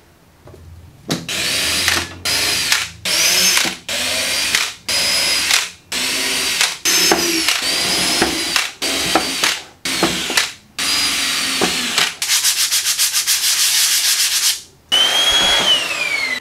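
DeWalt cordless drill boring a series of holes through MDF board in a dozen or so short bursts, its motor whine rising and falling with each one. Near the end there are about two seconds of fast, even rattling, and a final burst whines down in pitch.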